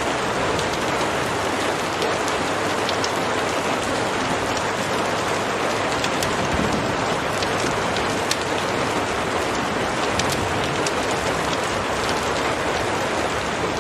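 Steady, heavy rain falling on a surface, a continuous hiss with scattered faint ticks of individual drops.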